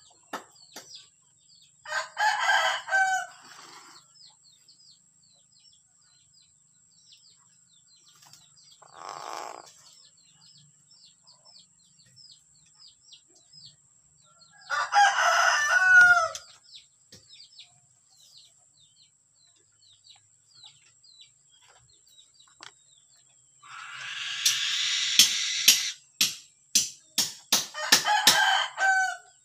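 Loud, drawn-out bird calls about three times, with a fainter one between, over faint rapid chirping. Near the end comes a harsh noisy call followed by a quick run of sharp clicks.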